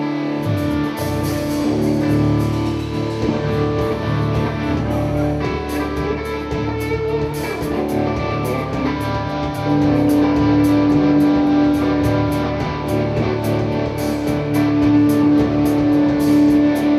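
Live band playing an instrumental intro: guitars over bass with a long held note, a steady beat coming in about five seconds in, and the music getting louder about ten seconds in.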